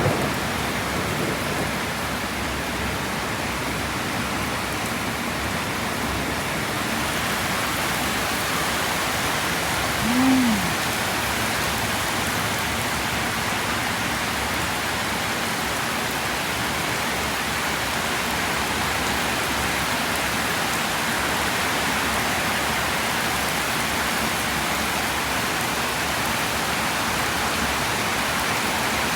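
Heavy rain pouring down in a steady hiss. About ten seconds in there is one short sound that rises and falls in pitch.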